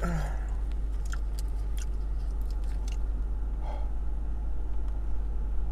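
Scattered soft clicks and small handling noises of eating, as a breaded fried piece is dipped into a plastic cup of ranch, over a steady low hum inside a car. A short hum of voice comes at the very start.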